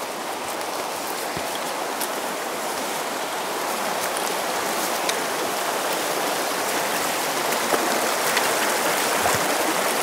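Mountain stream rushing over stones: a steady rush of water that grows gradually louder.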